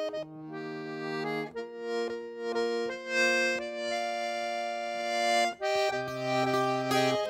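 Accordion playing a slow tune in long held chords over sustained bass notes, the chords changing a few times.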